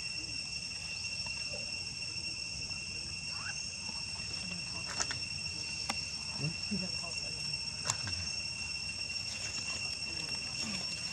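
Insects droning steadily with two even shrill tones, with a few sharp clicks in the middle.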